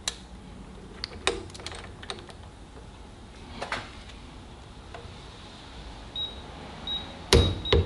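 Small metallic clicks of a torque adapter extension and socket being fitted and handled, then a few short high beeps from a digital torque transducer as the click-type torque wrench is pulled. About seven seconds in comes the loud sharp click of the torque wrench breaking over at its 30 ft-lb setting.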